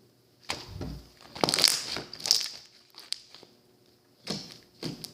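Slime being squeezed and pressed by hand close to the microphone: an irregular run of squishy bursts, each under a second long, with a single sharp pop about three seconds in.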